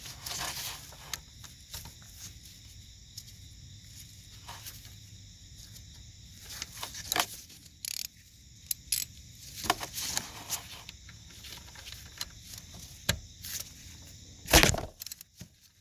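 Irregular metallic clicks and clanks of a wrench working a deep socket to break loose a car's oil pressure sensor, with one louder knock near the end.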